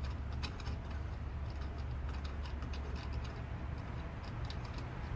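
Light, irregular clicking and ticking from a cable-railing turnbuckle being worked by hand, over a steady low hum.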